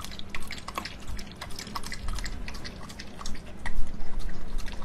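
A corgi lapping milk from a bowl: a quick, irregular run of small wet clicks.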